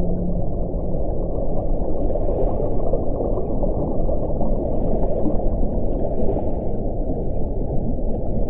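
Underwater-style ocean ambience with whale calls: a dense, steady low wash of noise, with a held low whale tone that fades about a second in and a few faint hissing swells above it.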